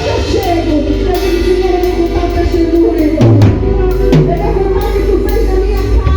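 Band music with drums, guitar and singing, with a steady beat.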